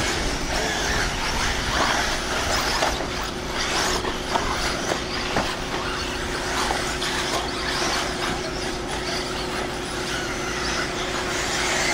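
Eighth-scale electric RC buggies racing on a dirt off-road track: a steady hiss of motors and tyres, with scattered short knocks.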